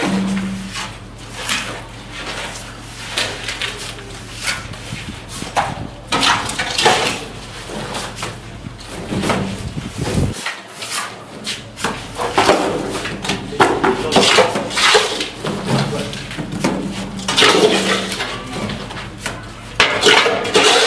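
Steel trowels scraping wet cement mortar from metal pans and flicking it onto a brick wall: a busy run of short scrapes and slaps, thickest in clusters partway through and near the end, over a steady low hum.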